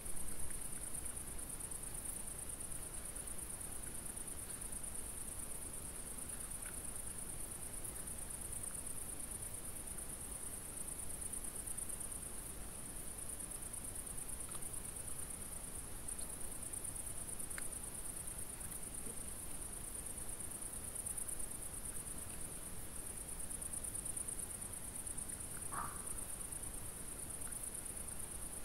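Crickets chirring in a continuous high-pitched trill that holds steady throughout, with a few faint, brief noises now and then.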